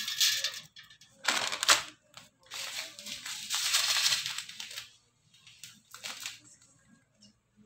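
Dry fennel seeds sprinkled by hand into a stainless steel bowl of chopped onions. They make four short bursts of dry rustling and pattering, the third the longest.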